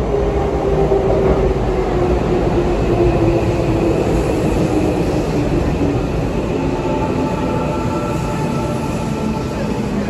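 Tokyo Metro 17000 series electric train pulling into a station platform and slowing. There is a steady rumble of wheels on rails and a whine that falls slowly in pitch as the train decelerates. Higher steady tones join in about seven seconds in.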